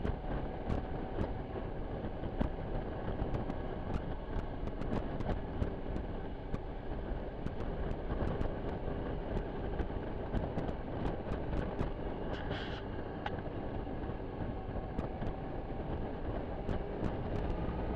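Suzuki Burgman 650 maxi-scooter's parallel-twin engine running at a steady cruise under wind and road noise. A brief high-pitched sound comes about twelve seconds in.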